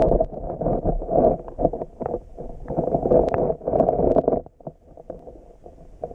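Muffled sloshing of water heard through an underwater camera's housing, in irregular bursts, louder for the first four seconds or so and then much fainter.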